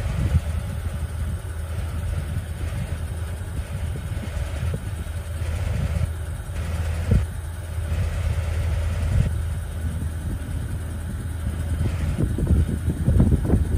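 Engine of a 1986 Chevrolet tandem-axle grain truck idling steadily, a low even rumble.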